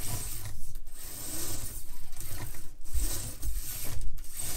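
FMS FCX24 micro RC crawler's electric motor and geared drivetrain whirring and clattering in stop-start bursts as it works its way up over a log.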